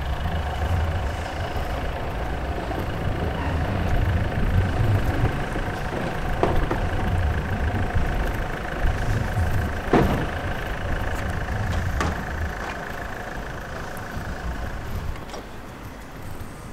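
An engine running steadily: a low rumble with a steady whine over it, dying away about fifteen seconds in. A few sharp knocks come along the way.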